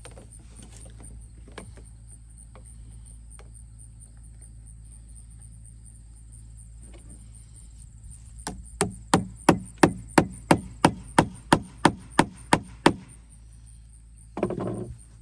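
Hammer driving a nail into a wooden board to fasten a tubing clip: about fourteen sharp, even strikes at roughly three a second, starting about eight seconds in. A brief thud follows near the end.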